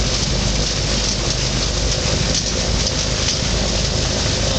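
Thruster T600N microlight's engine and propeller running steadily under a heavy rush of wind across the cockpit microphone.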